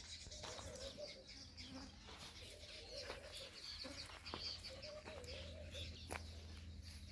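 Faint bird calls: wavering, dove-like cooing and high chirps, with a few sharp clicks.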